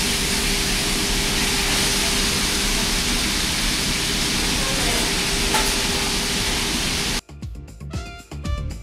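Ship's galley noise: a steady hiss with a constant low hum from the galley range and extractor hood. About seven seconds in it cuts off abruptly and background music takes over.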